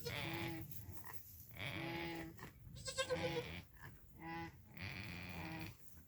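Goats snoring: a rhythmic run of about five rasping breaths, one every second or so, each with a humming tone. The breath about three seconds in is louder and more tonal.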